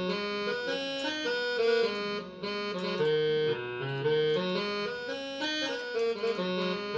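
Casio CTK-3500 digital keyboard playing its orchestral brass tone: a short tune over held chords, the notes changing about twice a second.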